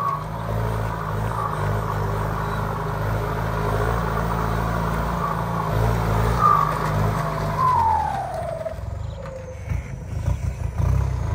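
Kubota M7508 tractor's turbocharged diesel engine running steadily under load while pulling a disc plough. About seven and a half seconds in, a whistle falls in pitch as the engine note drops away, and the engine comes back up near the end.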